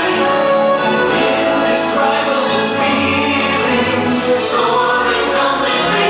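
Orchestral music with a choir singing, the soundtrack of a fireworks show, with held sustained notes.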